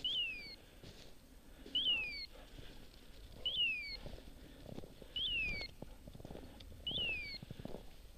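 A bird dog's hawk-call beeper collar sounding in point mode: a short, falling, hawk-like scream repeated five times, evenly about every 1.7 seconds. It signals that the English setter is holding a point.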